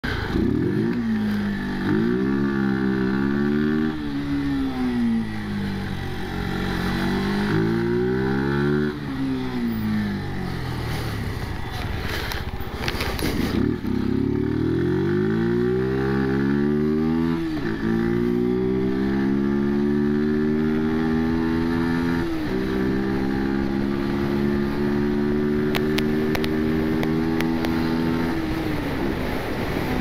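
Brixton Rayburn 125 motorcycle's single-cylinder engine pulling away and accelerating through the gears. Its pitch climbs and drops back at each shift, with a brief rush of noise about twelve seconds in, then it runs at a steady, slowly rising pitch at cruising speed until easing off near the end.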